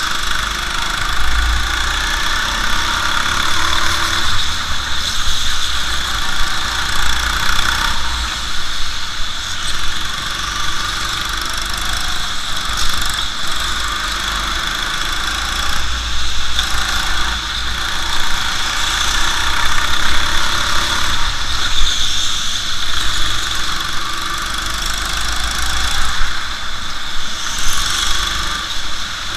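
Go-kart engine running through a lap, its loudness swelling and easing every few seconds as the throttle opens and closes through the corners.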